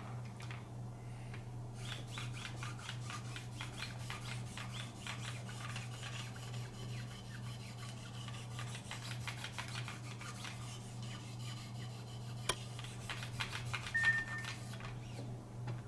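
Quick, regular back-and-forth scraping strokes of 30-micron abrasives on a Wicked Edge guided sharpener rubbing along the Benchmade Pagan's blade edge, under a steady low hum. One sharp click comes near the end.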